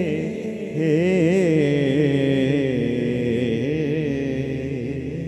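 Men singing a naat into microphones, with long wavering held notes and no words broken out. It fades slowly near the end.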